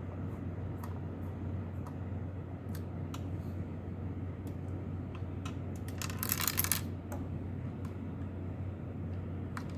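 Light scattered clicks of a screwdriver and small screws being worked out of a computer module's metal case, with a brief scraping rasp about six seconds in, over a steady low hum.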